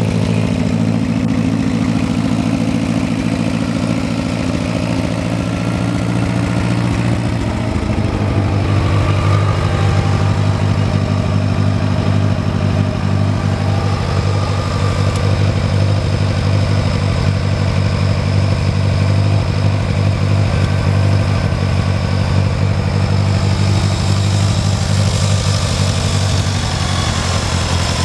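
1969 Oliver 550 tractor's four-cylinder engine running steadily at low speed. Its note changes about eight seconds in, then settles again.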